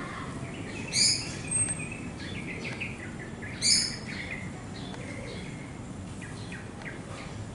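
Birds calling in the trees: two loud calls, about a second and about three and a half seconds in, with many short, softer chirps between them, over a steady low background noise.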